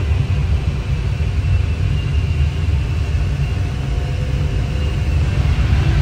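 Steady low rumble of air rushing past a glider's canopy in flight, heard from inside the cockpit, with a faint high whistle that comes and goes.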